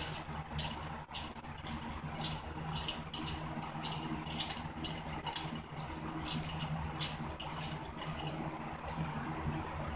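Metal hand tools clicking and clinking on engine bolts while parts are unbolted from a Honda XR50's small single-cylinder engine: short sharp clicks about twice a second, unevenly spaced, over a steady low hum.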